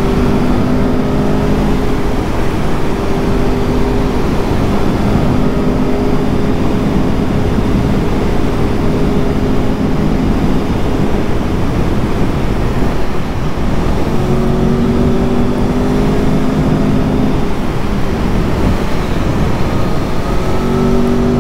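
Aprilia Tuono V4 1100's 1077 cc V4 engine heard on board while riding, running at a fairly steady cruise with a slight rise in pitch a few times, under a constant rush of wind and road noise.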